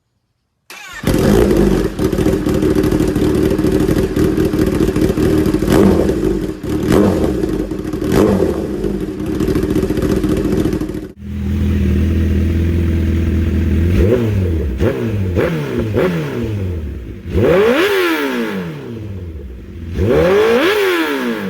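1000cc sport motorcycles on aftermarket exhausts: one engine held at high revs, steady and loud, then after a cut a second bike idling and being revved repeatedly, the pitch climbing and dropping with each blip.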